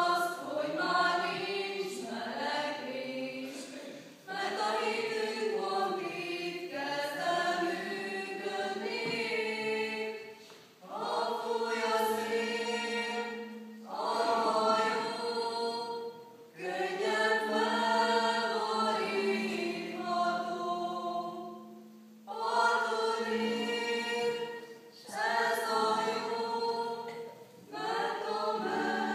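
Small mixed choir of young men and women singing together, in phrases of several seconds with short breaks between them.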